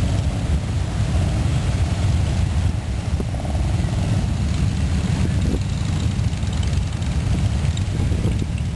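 A stream of Harley-Davidson V-twin motorcycles riding past, their engines making a steady, low-pitched rumble.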